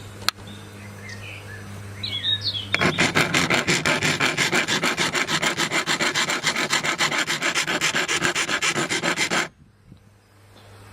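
Hand file rasping back and forth across the steel cutting edge of a Bosch Rotak 320 lawnmower blade in quick, even strokes, sharpening a blunt, worn edge. The filing starts about three seconds in and stops abruptly near the end.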